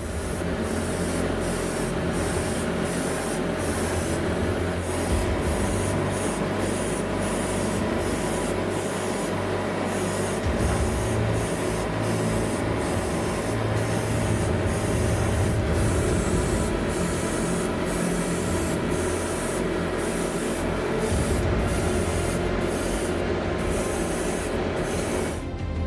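Airbrush spraying clear gloss lacquer: a steady hiss of air and paint, broken by many short dips in the highest hiss, over a steady low hum.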